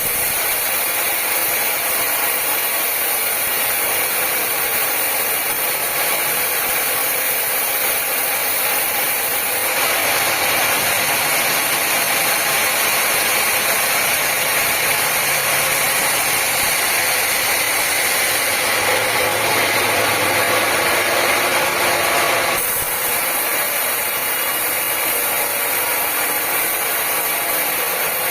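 Sawmill machinery running steadily, a loud, hissing mechanical noise of saw and engine. The sound changes abruptly about ten seconds in and again about twenty-three seconds in.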